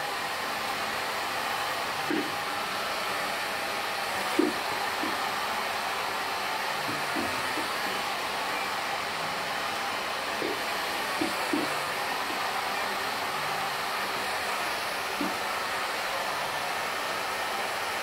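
Handheld hair dryer running steadily at one speed, blowing air through a person's hair.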